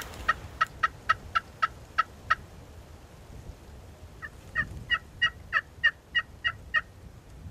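Turkey yelping: two runs of short, evenly spaced yelps, about four a second, with a pause of about two seconds between them.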